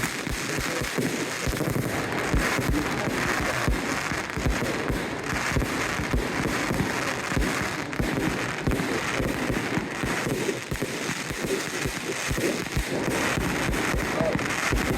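Fireworks display going off continuously: rapid, overlapping booms of bursting shells, several a second, over steady crackling.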